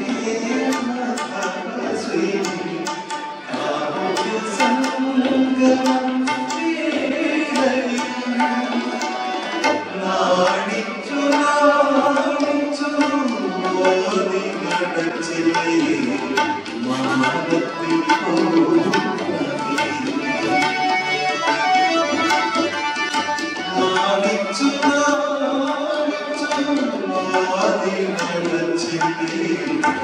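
A man singing into a microphone, accompanied by a harmonium and a tabla playing a steady stream of strokes throughout.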